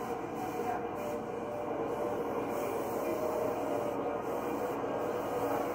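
A steady drone with several held tones and a faint hiss, heard through a TV speaker.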